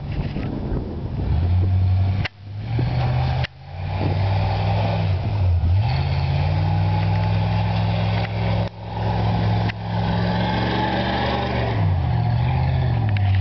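1994 Ford F-150's 5.8 L 351 Windsor V8 through a Cherry Bomb exhaust, held at high revs as the truck ploughs through deep snow. The revs fall and climb again twice, about halfway through and near the end, and the sound cuts out briefly a few times.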